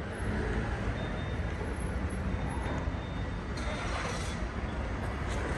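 Street traffic ambience: a steady rumble of road vehicles running past, with a slightly brighter passing sound about four seconds in.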